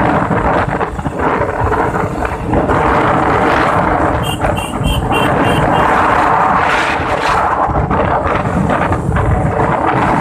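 Wind buffeting the microphone over road and engine noise from riding along a highway, a loud rumbling rush throughout. About four seconds in, five short high beeps come in quick succession.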